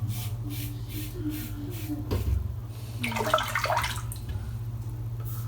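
Stainless-steel safety razor with a Gillette Nacet blade scraping through lather and stubble on a scalp in short, quick strokes, about three or four a second, over a steady low hum. About three seconds in comes a brief splash of water.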